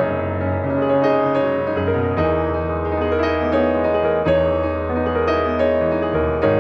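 Slow, gentle piano music: held low chords changing every couple of seconds under a soft melody of struck notes.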